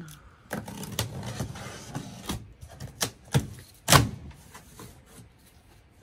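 Utility knife slitting the packing tape and cardboard across the top of a box, a rough scraping for about two seconds, followed by four sharp cardboard knocks and cracks as the box flaps are worked open.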